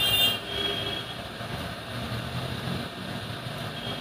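Hot air rework station blowing steadily as it heats an IC on a TV T-con board, with a brief high-pitched squeal near the start.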